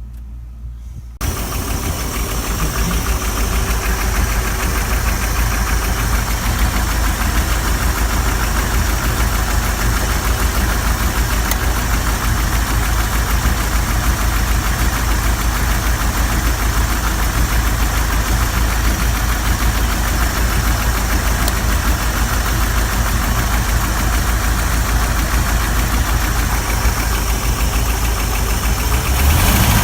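Gasoline V-engine of a 1980 Penn Yan Sportfish 30 running steadily at idle, coming in abruptly loud about a second in. It has a knocking tap that the owner takes for a loud valve tap on the right bank of the starboard engine.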